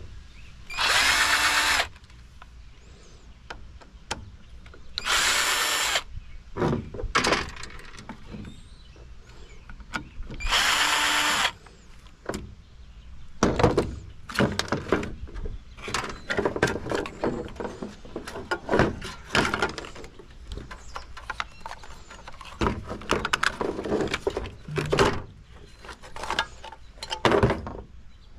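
Cordless drill/driver whirring in three short bursts of about a second each, backing screws out of a computer tower, followed by a long run of clicks, knocks and clattering as metal parts and screws are handled and pulled apart.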